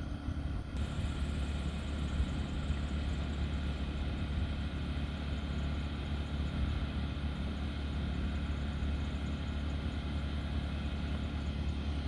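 Steady low machine hum, even and unchanging in pitch.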